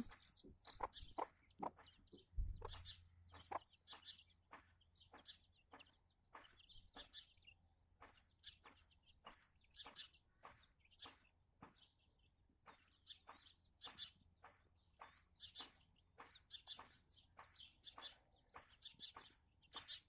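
A hen and her young chicks calling quietly, with many short, high peeps a few times a second and some soft clucks.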